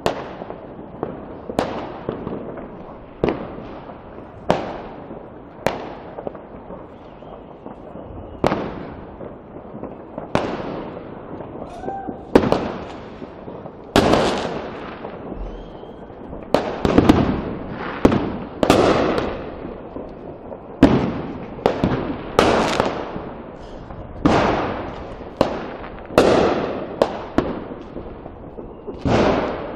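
Fireworks and firecrackers going off: a string of irregular sharp bangs, each trailing off in an echo, coming thicker and louder from about halfway through.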